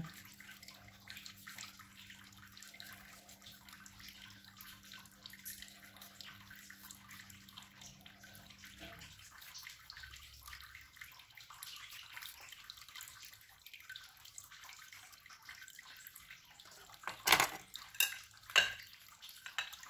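Faint, repeated small crunches of a kitchen knife slicing a cucumber held in the hand, the pieces dropping into a bowl of broth, over a faint steady hum that stops about halfway through. Near the end come three sharp clinks of kitchenware.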